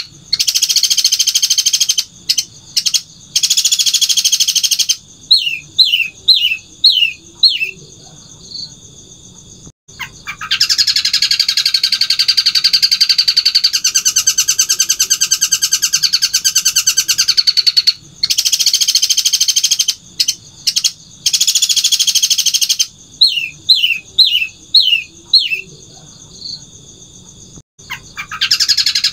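Caged long-tailed shrike (cendet) singing in long, loud bursts of very rapid chattering trills. Twice a burst is followed by a run of about five or six short downward-sliding whistles, then a brief pause, before the next burst.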